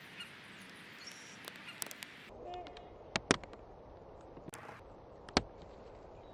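Outdoor ambience of backyard birds: scattered sharp taps and clicks, the loudest a pair about three seconds in and another near the end, and a brief bird call. The background changes abruptly twice, as if the audio is spliced from short pieces.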